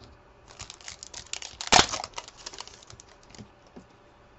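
Trading cards and an opened pack wrapper being handled by hand: a run of crinkling and small card clicks, loudest just under two seconds in.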